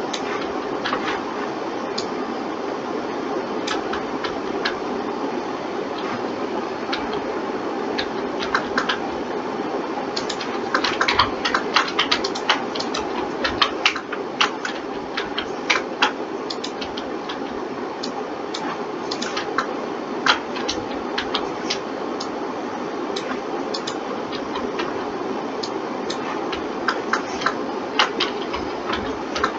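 Irregular clicking of computer keyboard keys and mouse buttons, in scattered runs that are busiest in the middle and near the end, over a steady background hiss.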